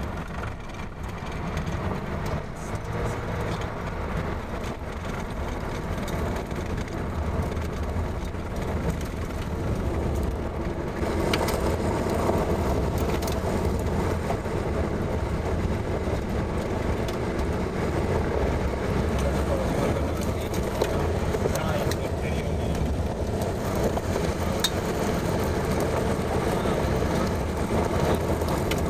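Road and engine noise inside a moving vehicle. It is steady and grows louder over the first ten or so seconds as the vehicle speeds up.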